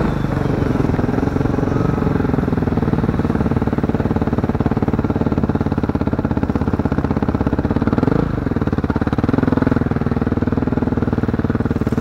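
A vehicle engine running steadily with a fast, even pulse. Its pitch dips and rises briefly about eight seconds in.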